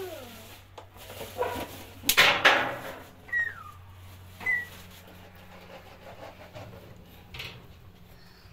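Sticks of firewood being handled and pushed into a barrel stove's firebox, with a loud scraping clatter about two seconds in and smaller ones before and near the end. A low steady hum runs under it, and two short high chirps come in the middle.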